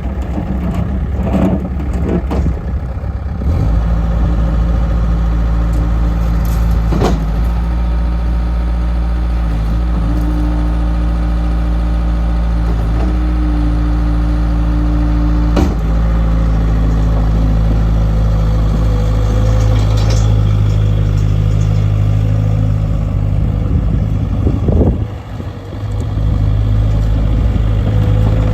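Bobcat T140 skid steer loader's diesel engine running. It picks up speed a few seconds in and holds steady, dips briefly near the end, then comes back up. Two sharp knocks are heard along the way.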